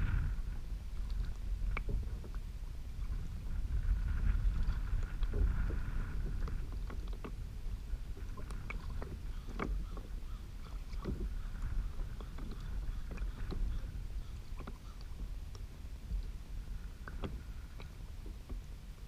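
Lake water lapping and slapping against a kayak hull in short, irregular splashes and ticks, over a steady low rumble of wind on the microphone.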